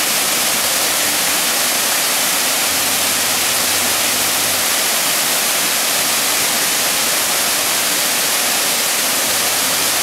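Waterfall rushing steadily as a wide curtain of water pours over a rock ledge into the pool below; a constant, even roar with no change in level.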